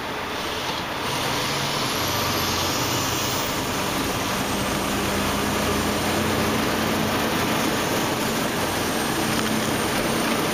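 Semi truck driving, heard from inside the cab: a steady engine drone under constant road noise.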